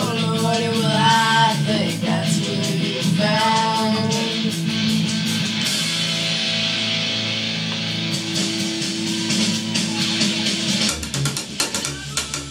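Recorded rock song playing: singing over guitar and steady drum hits. The singing drops out about four seconds in, a long held note follows, and heavier drums come in near the end.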